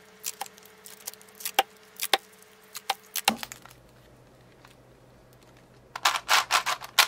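Thin plastic wrapping crinkling and crackling in short irregular bursts as it is pulled off a Maru 4x4 speed cube. About six seconds in comes a quick run of plastic clicks as the cube's layers are turned for the first time.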